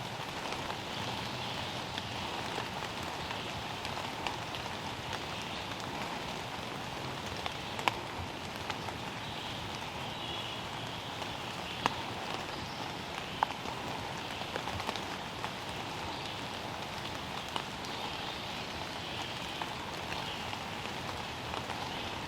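Steady rain falling, with a few louder single drops ticking close by.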